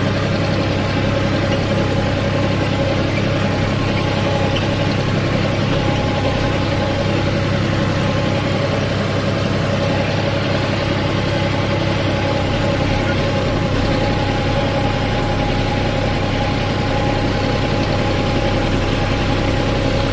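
John Deere 5305 tractor's three-cylinder diesel engine running steadily under load as it pulls a land leveller, heard from the driver's seat.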